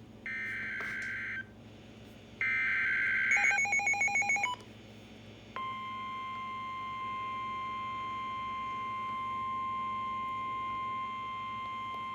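NOAA Weather Radio emergency alert: two short screeching bursts of SAME digital header data, with a quick run of beeping tones at the end of the second. About five and a half seconds in, the steady 1050 Hz weather-radio warning alarm tone starts and holds without a break.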